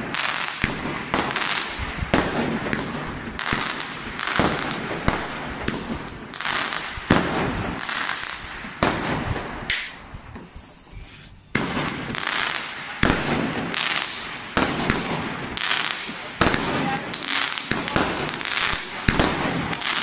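Fireworks going off: a fast, irregular string of bangs and crackling bursts, with a short lull about halfway through before they pick up again.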